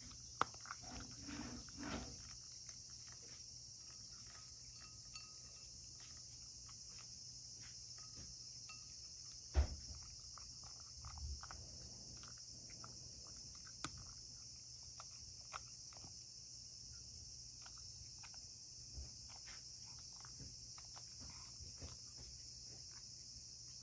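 Cat eating dry kibble from a ceramic bowl: faint, scattered crunches and clicks of teeth on the dry food, with one louder click about ten seconds in.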